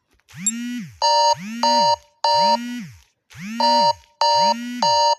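Smartphone alarm tone playing through the phone's speaker: a softer swooping tone followed by three short, bright electronic beep chords, the pattern repeating twice.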